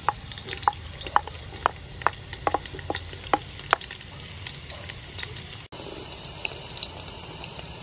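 Chopped garlic frying in hot soybean oil in a metal pot: a steady sizzle with about ten sharp pops over the first four seconds. After a brief break, a wooden spoon stirs the garlic through the sizzling oil.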